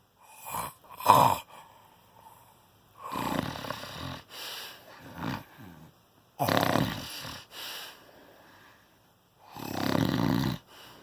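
Heavy snoring from a sleeper: two short snorts in the first second and a half, then long rasping snores about every three seconds.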